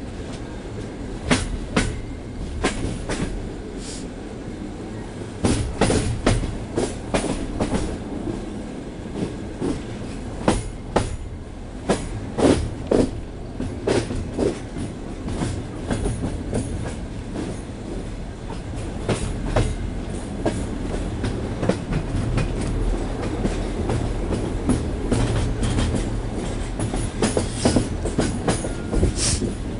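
Passenger train coach running over rough track: a steady low rumble of wheels on rail, broken by irregular clacks and knocks as the wheels strike rail joints. The knocking is typical of a line in poor technical condition.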